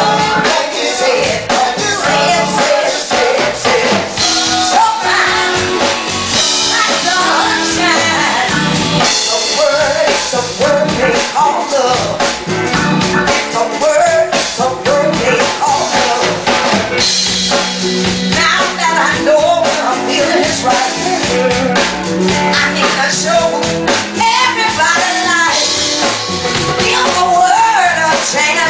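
Live soul band music: a woman singing into a microphone over electric guitar and the band, with a steady beat.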